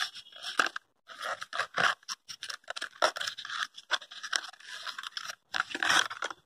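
A Boroline cream tube's cardboard carton being opened and the tube slid out by hand: irregular scraping and crinkling of paperboard rubbing against the tube.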